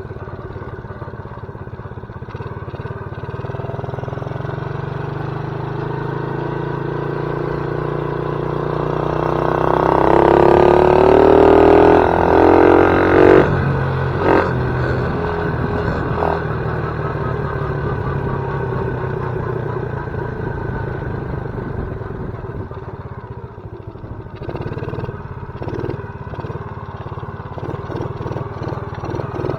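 Small ATV engine running steadily. It gets louder and climbs in pitch for a few seconds around ten seconds in, then drops back sharply, with a couple of short knocks just after.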